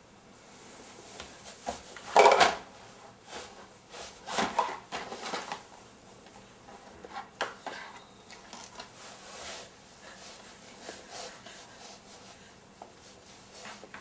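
Plastic DVD cases and toys clattering and knocking as a baby handles them on the floor. The knocks come irregularly, with the loudest cluster about two seconds in and another about four and a half seconds in.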